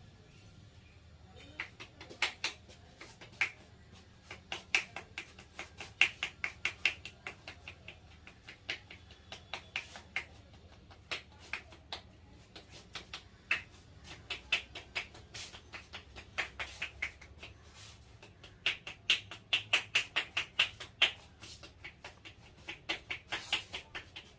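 Sharp slaps and clicks from a barber's hands working a customer's head during a head massage. They come in quick runs of several strikes a second, with short pauses between runs; the fastest run comes near the end.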